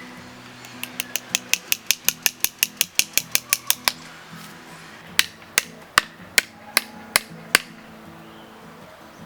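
Hammer striking wood: a quick run of light taps, about five a second, then, after a short pause, seven heavier, slower blows.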